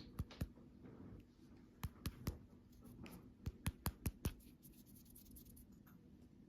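Light, sharp clicks and taps from candy packaging being handled, in three quick clusters: three, then three, then five about a fifth of a second apart.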